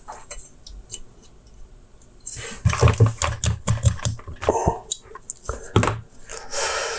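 Hand-work noise as stiff nylon trimmer line is pulled with pliers through the holes of an aluminium trimmer head: a quiet start, then about two seconds in a run of clicks and scrapes as the line drags and scratches against the metal, with a short rustling scrape near the end.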